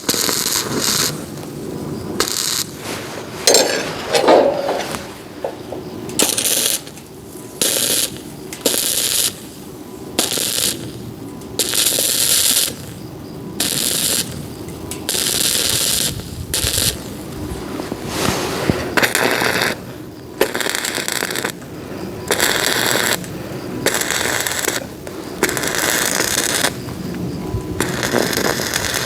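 Electric arc welding in many short bursts of a second or so each, crackling and sizzling, with brief pauses between the welds.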